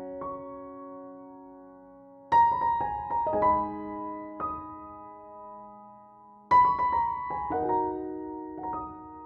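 Background piano music: slow, gentle notes and chords struck and left ringing to fade, with the loudest chords about two seconds in and again past six seconds.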